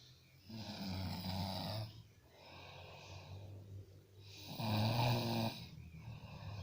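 A person snoring in their sleep: two loud snores with a low buzz, about four seconds apart, with a softer breath between them.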